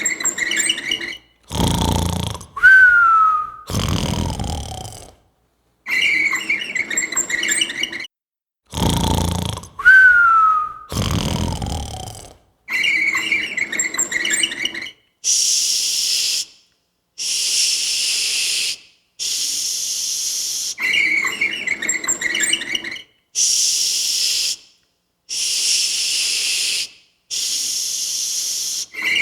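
Snoring, twice: a low rasping inhale, then a whistling exhale that falls in pitch. Then a run of six short hissing breaths. A short repeated cue sound comes between the groups.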